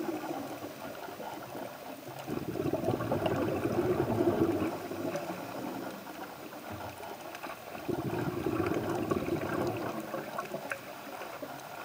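Muffled underwater water noise picked up by a camera submerged on a reef, swelling twice into longer surges of rushing, gurgling water.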